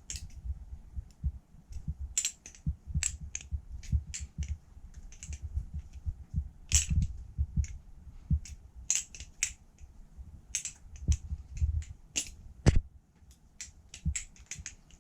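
Butterfly knife (balisong) being flipped: sharp, irregular clicks and clacks, several a second, as the handles swing open and shut and knock against each other, with dull low thumps beneath.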